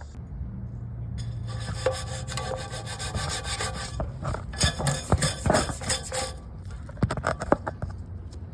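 A brush scrubbing the fins of a dirty HVAC blower wheel: irregular rubbing and scraping strokes, starting about a second in.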